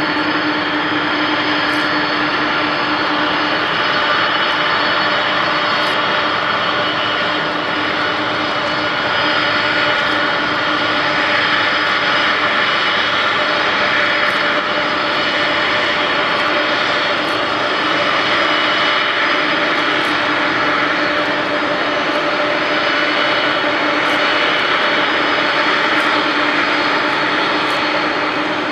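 Boeing 747-400 freighter's four jet engines running at taxi power as it rolls slowly past: a steady whine of several held tones over a constant hiss.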